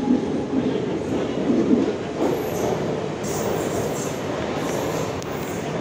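Mumbai suburban local electric train running along the platform close by: a steady rumble of wheels and carriages. A thin, high wheel squeal comes in about two seconds in.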